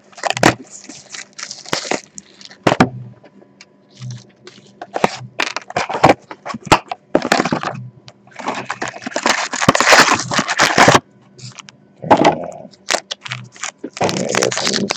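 Trading-card box packaging being torn open and handled: plastic wrap crinkling and tearing, cardboard rustling and clicking in irregular bursts, the longest and loudest about eight to eleven seconds in.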